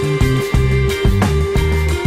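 Background music with a steady beat and a moving bass line.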